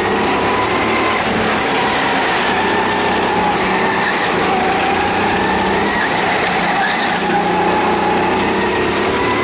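Go-kart's small engine running under throttle, heard from on board the kart, its pitch rising and falling slightly as it drives through the corners.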